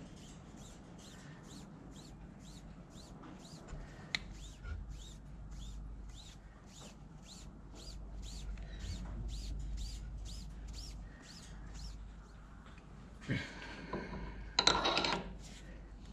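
A rag rubbing over a freshly blued steel Morse taper, with a faint squeak at each stroke, about two and a half strokes a second. Near the end there is a metal knock and a short scrape as a Morse taper sleeve is pushed onto the taper and twisted to check the fit.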